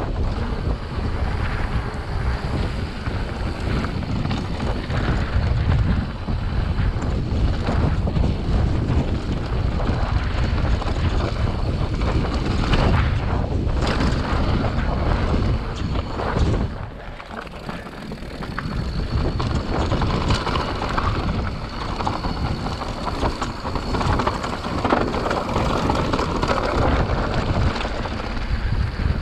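Wind buffeting the microphone of a handlebar-mounted action camera on a mountain bike riding a dirt trail, with the knobby tires crunching over the dirt and rattles and knocks from the bike over bumps. It briefly drops quieter a little past halfway, then picks up again.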